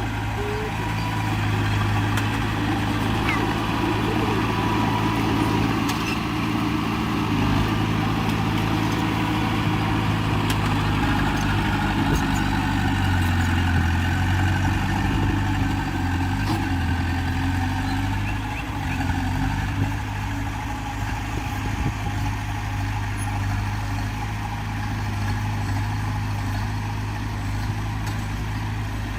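Heavy diesel engine of earthmoving machinery running steadily, its pitch shifting up and down for a while mid-way as it works under changing load.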